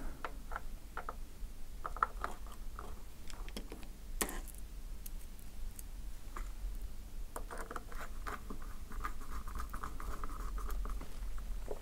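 Faint clicks and scratches of a small screwdriver driving the hinge screws into an ASUS UX303LA laptop display lid, with fingers handling the small parts; one sharper click about four seconds in and a quicker run of small ticks in the last few seconds.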